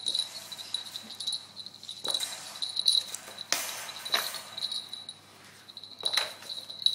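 A wire dog crate knocking and rattling as a mop is pushed against and through its bars and a toy poodle puppy scrambles after it. The sharp knocks come at irregular intervals, half a dozen or so.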